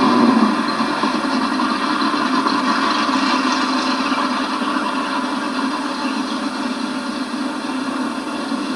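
Car V8 engine, the modified 302 of a 1968 Mercury Cougar, running at a steady note after a short drop in pitch at the start.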